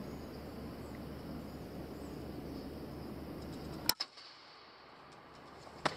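A pre-charged air rifle fires a single sharp crack about four seconds in, over a steady low hum. A second short click follows about two seconds later.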